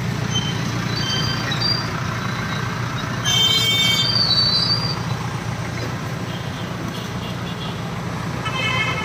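Steady drone of an Ashok Leyland goods truck's diesel engine with road noise under it, as heard while driving. A vehicle horn toots for under a second about three seconds in, and again briefly near the end.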